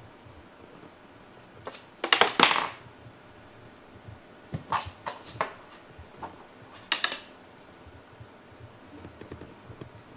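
Cats batting at a stick toy in a cardboard play box, with the toy's stick and their paws knocking against the cardboard and floor: three bursts of quick clattering taps, the loudest about two seconds in, then others around five and seven seconds.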